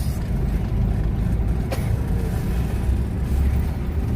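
Steady low rumble of a running motor vehicle, with one short click a little under two seconds in.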